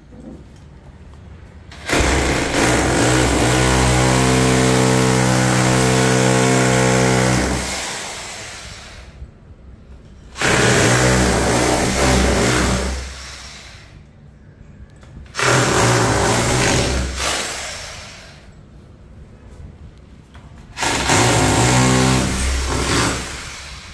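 Electric power drill running in four bursts, the first about five seconds long and the rest shorter, each starting suddenly and winding down as the trigger is released.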